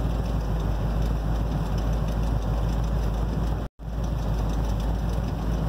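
1978 GMC Suburban's V8 idling steadily, heard from inside the cab, with a momentary dropout to silence a little after halfway.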